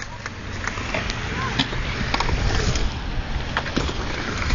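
BMX bikes riding a concrete skatepark bowl: tyres rolling on concrete over a low rumble, with many sharp knocks and clicks from the bikes scattered throughout.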